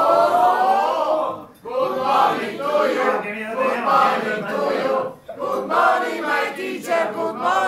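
A table of people chanting together as a toast, glasses raised. A long held, slowly rising group shout breaks off about a second and a half in, followed by a rhythmic chanted verse in unison.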